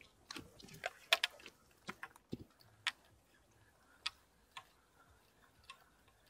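Irregular light clicks and taps of fishing tackle being handled by hand, close together in the first three seconds, then a few scattered ones.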